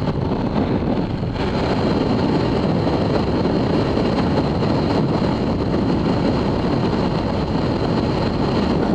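Steady wind rush on the microphone of a camera mounted on a sport motorcycle riding at road speed, with the bike's engine and road noise blended underneath, plus a faint steady high whine.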